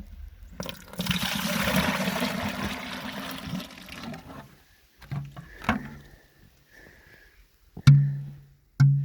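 Maple sap being poured out of a sap bucket into a gathering bucket: a splashing rush of liquid lasting about three seconds. Then a few knocks and clatters as the buckets are handled.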